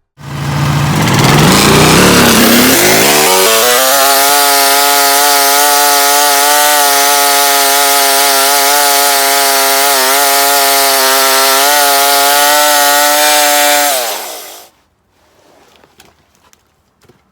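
Sawmill's gas engine throttling up from low speed to full speed over a few seconds, running steadily with the blade cutting through the red oak log, then winding down and stopping about fourteen seconds in.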